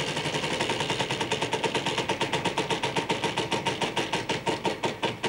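Game-show prize wheel spinning, its pegs clicking rapidly against the pointer; the clicks slow steadily as the wheel winds down.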